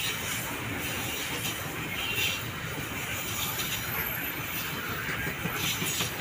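Long freight train of open-top wagons rolling past: a steady rumble and rattle of wheels on the rails.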